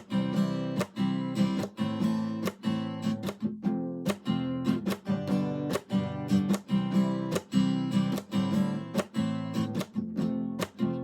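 Background music: acoustic guitar strumming in a steady rhythm of about two strums a second.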